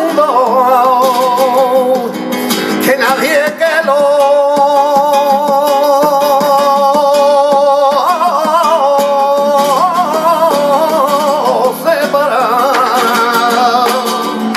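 Flamenco cante por colombianas: a male singer draws out long held notes with wavering ornaments, over a strummed flamenco guitar accompaniment.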